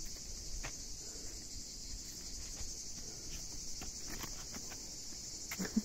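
Steady, high-pitched insect chorus, with a few faint taps.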